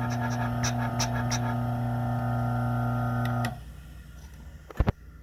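DF64 flat-burr coffee grinder motor running with a steady hum and a light ticking over it, then switched off about three and a half seconds in. A sharp double knock follows near the end.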